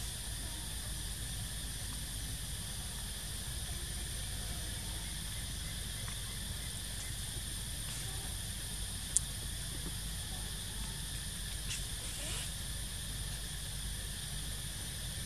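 Steady outdoor ambience: a constant high-pitched hiss over a low rumble, with one sharp click about nine seconds in.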